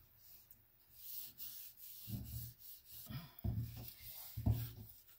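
Gloved fingers rubbing thick black paint across a stretched canvas in a series of soft strokes, starting about two seconds in.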